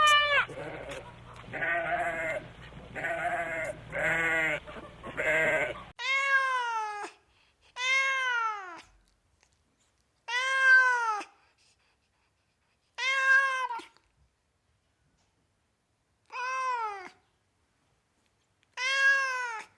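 A goat bleating five times in quick succession, then a cat meowing six times, each meow a rising-then-falling call of about a second, spaced two to three seconds apart.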